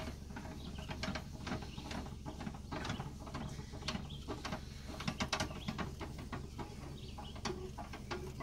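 Front stabilizer jack of an Aliner camper being cranked down with a bent-rod hand crank: a continuous, uneven run of metallic clicks and rattles from the jack's screw and the turning crank.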